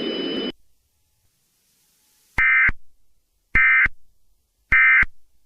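Three short, identical bursts of warbling EAS digital data tones, each about a third of a second long and about a second apart: the SAME end-of-message code that closes an Emergency Alert System message. Before them, the noisy background of the message cuts off half a second in, followed by two seconds of silence.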